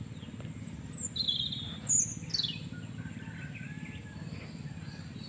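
Several short bird chirps, about one to two and a half seconds in, one call falling in pitch, over a faint steady high-pitched drone and low background hum.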